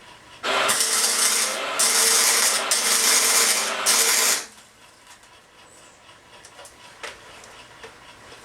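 Electric welding arc crackling through a run of about four seconds, broken by three short pauses, then stopping. A single sharp click follows later.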